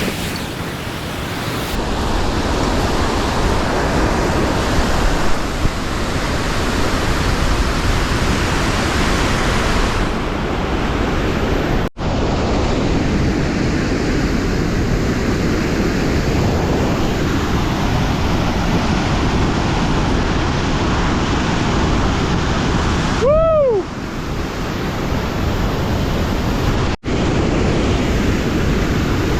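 Steady rush of fast-flowing river water, breaking off sharply twice. About three-quarters of the way through, a single short pitched call rises and falls once.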